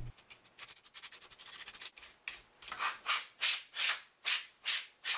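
Dry toothbrush scrubbing the dusty circuit board of a clock radio, bristles rasping in short strokes: faint at first, then about two regular strokes a second from around halfway.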